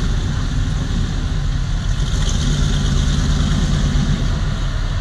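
Off-road vehicle engine running steadily at low revs on a rock-crawling trail, a low, even hum with no revving.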